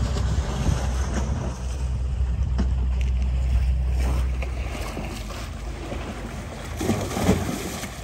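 Wind buffeting the microphone outdoors, with a heavy low rumble that drops away about five seconds in and a brief louder gust near the end.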